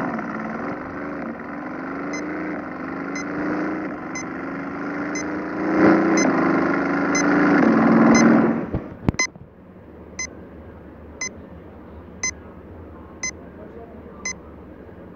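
Simulated supercar engine sound effect from a speedometer app, revving up with its pitch rising in several climbs as the needle sweeps toward top speed. It cuts off about nine seconds in. Short electronic beeps sound about once a second throughout.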